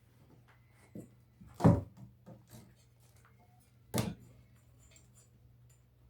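A few sudden knocks or thumps, the loudest about a second and a half in and another about four seconds in, over a low steady hum.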